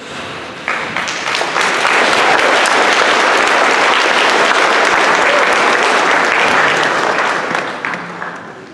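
Audience applauding, swelling about a second in, holding steady, then dying away near the end.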